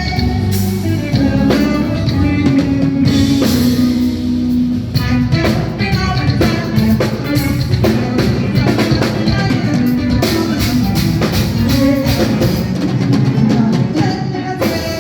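Live band playing amplified through a PA: a drum kit keeping a steady beat, with electric bass and keyboards.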